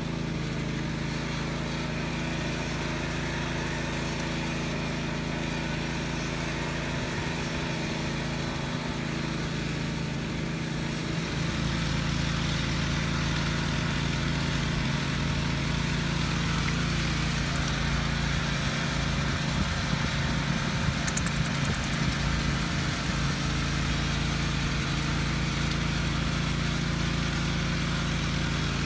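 Gasoline engine of a walk-behind concrete power trowel running steadily while the slab is finished. It gets somewhat louder about eleven seconds in.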